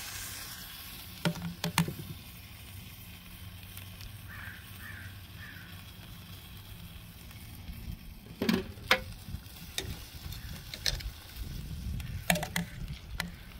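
Chicken sizzling faintly on a grill over open flames, with metal tongs clacking against a steel sauce pot and the grill a few times in short clusters.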